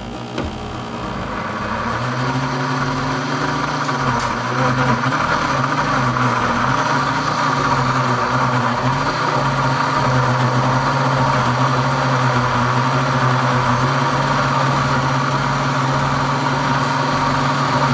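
Pampered Chef cooking blender's motor blending thick muffin batter ingredients (flour, greens and banana) in its pitcher. It comes up to speed over the first two seconds, then runs loudly and steadily.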